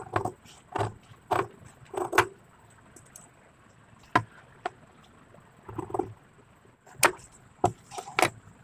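Large tailor's scissors snipping through stiff buckram interfacing: a quick run of about five sharp, crisp cuts, then a pause and scattered single snips later on.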